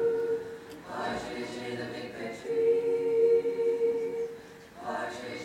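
Mixed-voice a cappella group singing, holding sustained chords, with new sung syllables starting about a second in and again near the end.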